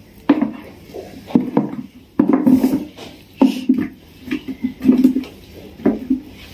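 Oily, chilli-coated raw mango pickle pieces being pushed by hand off a steel plate into a plastic container, with irregular clunks and scrapes from the steel plate.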